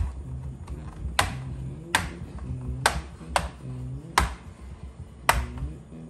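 Plastic retaining clips of an HP 15-dy2052la laptop's case snapping loose one after another as a plastic pry tool is worked along the seam: about seven sharp clicks, irregularly spaced roughly a second apart.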